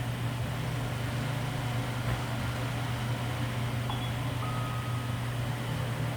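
A steady low mechanical hum over a constant noise, like a fan or running appliance, with a few faint short high tones in the second half.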